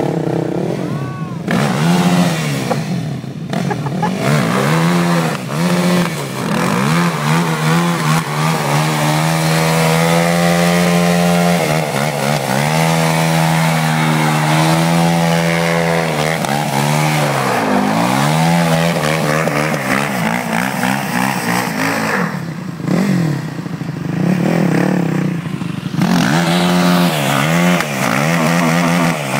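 ATV engine revving hard and repeatedly, rising and falling, held at high revs for a few seconds at a time, as it spins its wheels in a burnout.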